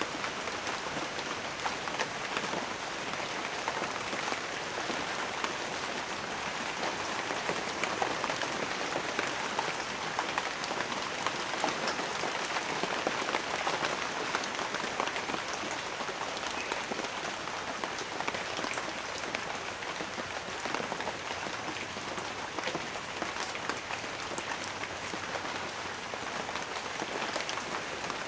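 Steady rain, a dense even patter of many small drop impacts with no change in strength.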